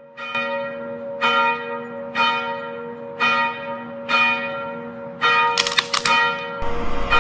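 A bell tolling about once a second, each stroke ringing out and fading, five strokes in all. Then a quick run of sharp metallic clanks, and a loud rushing noise sets in near the end.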